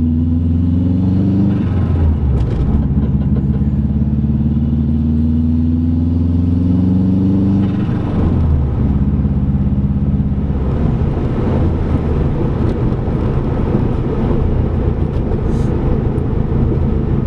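2005 Subaru WRX's turbocharged flat-four engine heard from the driver's seat while accelerating gently through the gears. Its pitch rises, drops at a gear change about a second and a half in, rises again for several seconds, drops at another shift around eight seconds in, then settles into a steady cruise with road noise. The engine runs with a small misfire, which the owner blames on a coil pack.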